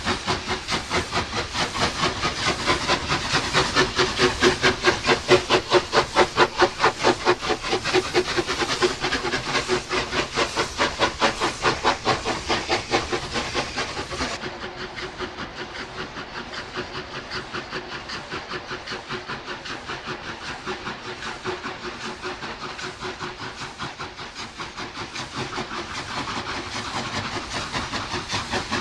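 Steam locomotive exhaust beating hard and fast, several chuffs a second, with steam hiss. About halfway through it changes abruptly to a quieter run of exhaust beats that grows louder again near the end.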